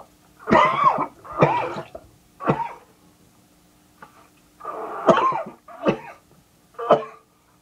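A man coughing in two bouts of three coughs, with a pause of about two seconds between them.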